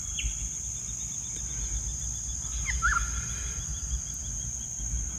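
Bush ambience: a steady high-pitched insect drone with a faint, fast-pulsing insect chirr beneath it. Two short swooping bird calls come right at the start and about three seconds in, over a low rumble.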